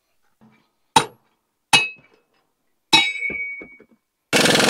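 Three separate sharp metal clanks from tools on the steel frame of a chisel plow, the second and third leaving a short metallic ring. About four seconds in, a loud, harsh, dense burst of noise starts.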